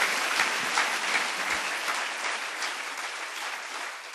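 Audience applauding, a dense patter of many hands clapping that steadily fades away.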